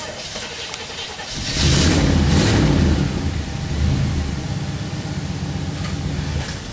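An engine starts about a second and a half in and runs louder for a second or so. It then settles into a steady idle.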